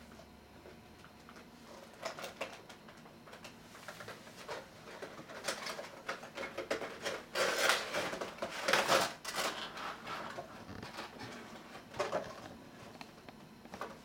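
A cardboard toy box being opened by hand and its plastic insert tray slid out: irregular rustling, scraping and light knocks, busiest around the middle.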